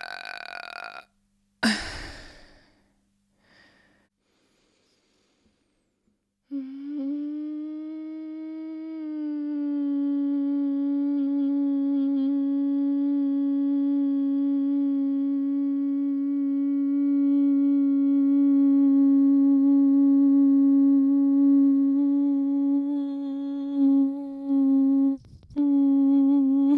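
A person humming one long, steady note that lasts nearly twenty seconds, breaking off briefly near the end and picking up again. It follows a short, sharp sound about two seconds in and a few seconds of quiet.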